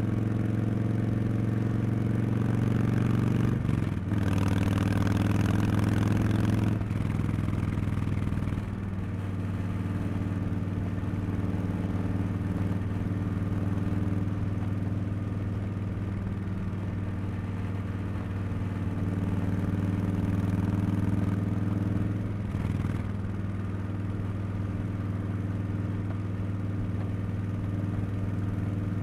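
A Harley-Davidson Street Bob 114's Milwaukee-Eight 114 V-twin running under way through Cobra Neighbor Hater slip-on mufflers, a loud, deep exhaust note. The note steps and dips briefly a few times, about four and seven seconds in and again near twenty-two seconds.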